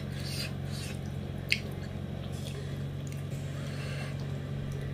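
Soft wet squishing and smacking of eating curry and fish by hand, with one sharp click about a second and a half in, over a steady low hum.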